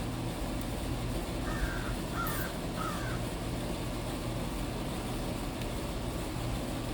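A crow cawing three times in quick succession, over a steady low hum.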